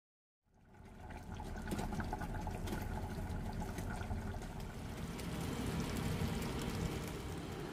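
Thick pepper-and-tomato sauce simmering in a stainless steel pot, bubbling steadily with many small pops. It starts abruptly about half a second in.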